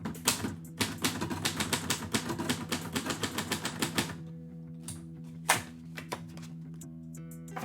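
A roughly 70-year-old manual typewriter typing: a quick run of keystrikes for about four seconds, then a few single strikes, the loudest about five and a half seconds in.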